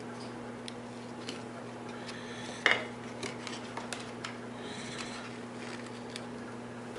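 Plastic fat-bike fender and its fittings being handled against the fork: scattered light clicks and rattles, with one sharper knock about two and a half seconds in. A steady low hum runs underneath.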